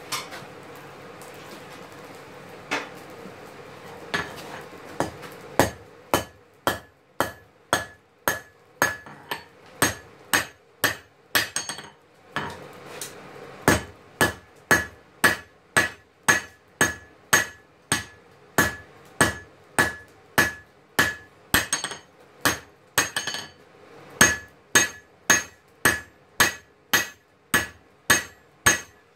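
Hand hammer forging red-hot steel for a knife on an anvil. The strikes come evenly, about two a second, each one ringing off the anvil, with two short pauses along the way.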